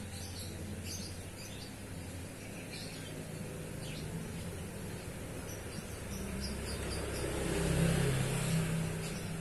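Background sound of a vehicle engine running, growing louder to a peak about eight seconds in and then easing off, with small bird chirps now and then.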